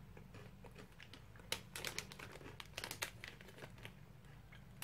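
Faint crinkling of plastic snack packaging: a cluster of sharp crackles from about one and a half to three seconds in.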